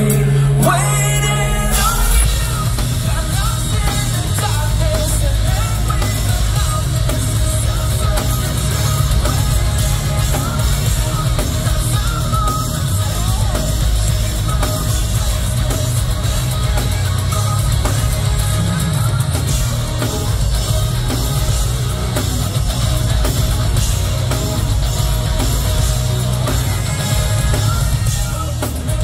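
Rock band playing live and loud: distorted electric guitars, bass and drum kit, with a singer's voice over the band.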